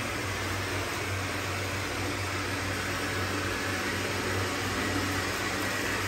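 Two robot vacuums, a Roborock S4 and an iRobot Roomba 655, running on a tile floor: a steady whirring hiss of suction motors and brushes with a low hum underneath.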